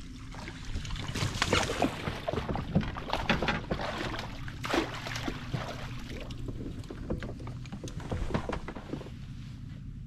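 Irregular knocking, rattling and scraping on a fishing kayak, a busy run of clatter lasting about eight seconds over a low steady rumble.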